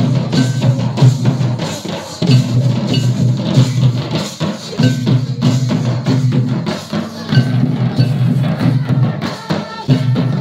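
Santali folk dance drumming: hand-played barrel drums beating a steady, driving rhythm, with a deep drum pattern that repeats about every two and a half seconds.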